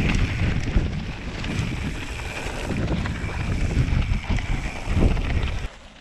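Mountain bike riding down a rough dirt singletrack: wind buffeting the handlebar-mounted camera's microphone over the tyres rumbling and the bike rattling. Near the end it cuts suddenly to a much quieter sound.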